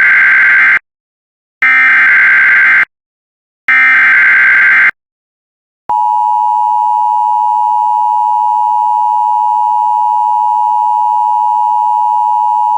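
Emergency Alert System header: three screeching bursts of SAME digital data, each about a second long, then after a short gap the EAS two-tone attention signal (853 and 960 Hz) comes on about six seconds in and holds steady.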